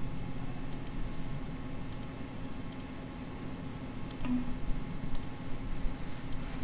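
Computer mouse buttons clicking, about six short click pairs (press and release) spaced a second or so apart, over a steady low hum.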